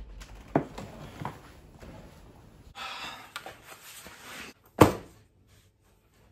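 A glazed balcony door clicking and knocking as it is opened and shut, then rustling as a backpack is pulled off, and one loud thud a little before the end as the backpack is dropped on the wooden floor.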